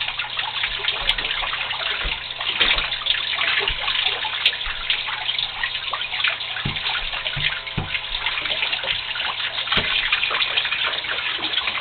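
Water spraying steadily from a small homemade tube fountain and splashing into a bathtub, with a few low knocks from the tube being handled partway through.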